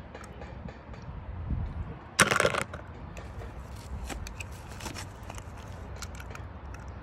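A hand rummaging through a wet mesh pool skimmer net, with small clicks and rustles as die-cast toy cars are picked out, and one louder burst of rustling noise about two seconds in.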